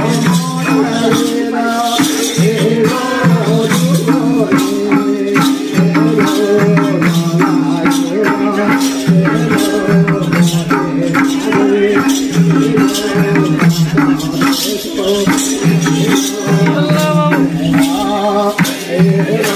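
Voices singing a Nepali Bhailo festival song to a steady hand-percussion beat.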